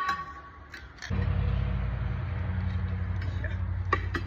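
A shop machine's electric motor starts about a second in and runs with a steady low hum, with two sharp metallic clicks near the end.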